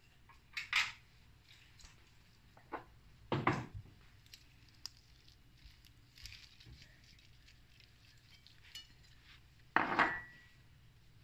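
Cutlery and dishes clinking and knocking: a few separate knocks in the first four seconds, then a louder clink near the end that rings briefly.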